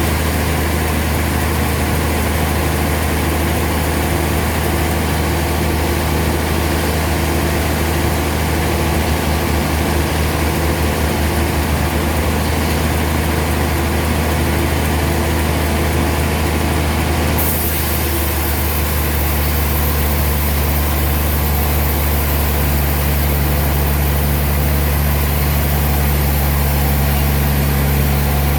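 Sawmill machinery running steadily, a loud, even engine hum with a deep drone; its tone shifts slightly about two-thirds of the way through.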